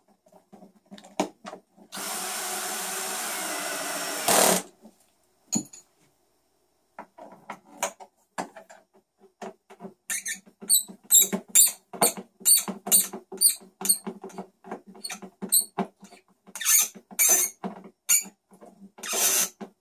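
Cordless drill-driver running for about two seconds as it drives a screw, ending in a sharp click. Then a hand screwdriver tightens screws, with a long run of sharp clicks about two a second.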